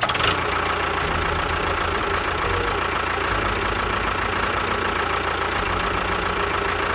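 A small motor running steadily with a fast rattling buzz, typical of a DIY miniature tractor's motor and gears.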